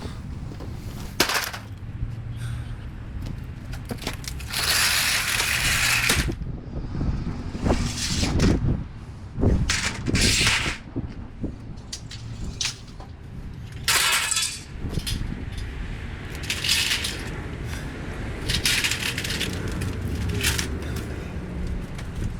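Yard debris being handled and cleared: irregular rustling, crackling and clattering, with several louder bursts of noise spread through.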